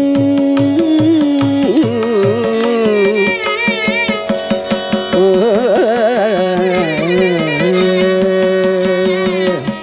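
Carnatic classical music in raga Bilahari: a held melody line with wavering, gliding ornaments over steady drum strokes.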